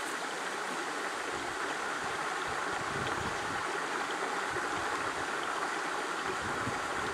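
Steady rushing of running water from a stream, with some low rumbles from about two and a half seconds in.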